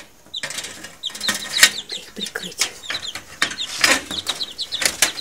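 A brood of mini-leghorn chicks peeping: many short, high, downward-sliding peeps overlapping at an irregular rate, with a few sharp taps and rustles among them.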